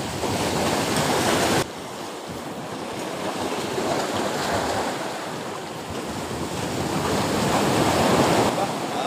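Sea waves surging and breaking against concrete breakwater blocks, with wind on the microphone. The noise drops suddenly about a second and a half in, then swells again toward the end as another wave washes over the blocks.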